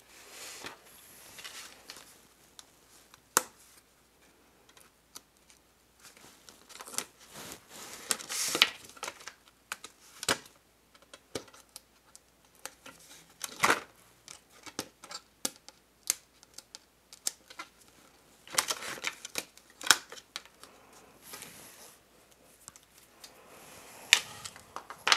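Scattered small clicks, taps and brief rustling scrapes of cardstock being handled as the red release liner is picked up with a pointed tool and peeled off strips of double-sided adhesive tape.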